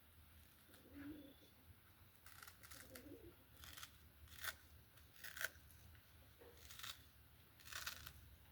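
Faint, irregular clicks and scrapes of the switched-off angle grinder's sanding attachment being handled and checked, about half a dozen from about two seconds in.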